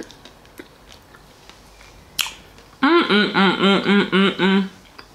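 A woman humming a quick run of about eight rising-and-falling "mmm" sounds with her mouth full, about three seconds in and lasting under two seconds. Before it there is quiet chewing with small fork clicks.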